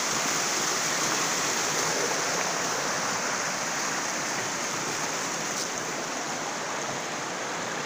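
Mountain stream rushing over rocks: a steady noise of running water, growing a little fainter toward the end.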